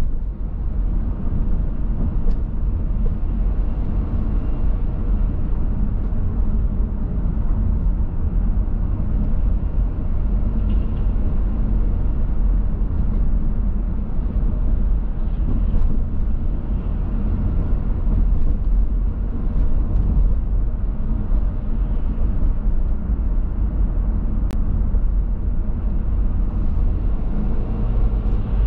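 Steady low rumble of a car driving: engine and tyre road noise, with a few faint ticks.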